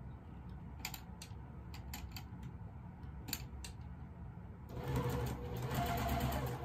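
A few separate light clicks, then a sewing machine starts running steadily about four and a half seconds in, stitching a small corner square onto a fabric block.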